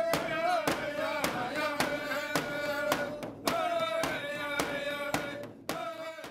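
Drum-dance music: drums struck in a steady beat, a little under two beats a second, under voices singing a chant on a held, wavering pitch. The music fades out near the end.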